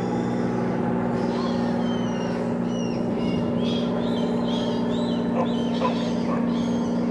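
Birds calling: a run of short, high whistled chirps begins about a second and a half in, over a steady low droning hum.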